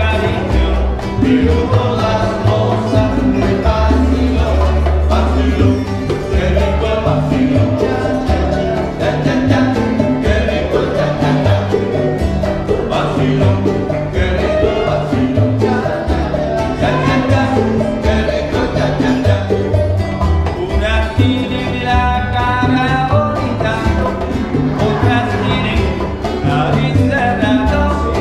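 Live Cuban acoustic band playing: strummed and plucked guitars over an upright bass and bongos, with a voice singing in places, mostly in the later part.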